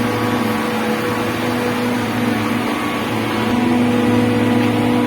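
Electric motor of a central AC plant's water pump running with a steady, even hum. The air has been purged from the lines after chemical dosing, so it runs smoothly with little noise.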